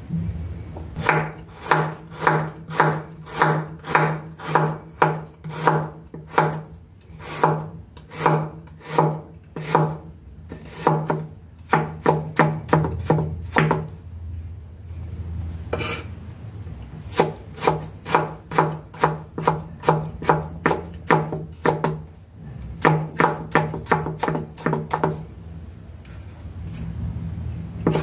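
Broad-bladed kitchen knife chopping fresh ginger on a wooden cutting board: runs of sharp knocks, about two a second, broken by short pauses.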